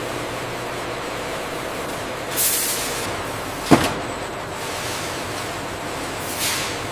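Steady bottling-line machinery noise, broken by two short hisses of air, about four seconds apart, and a single sharp clack between them.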